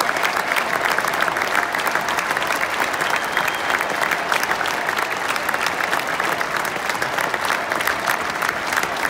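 Large stadium crowd applauding steadily, a dense patter of many hands clapping.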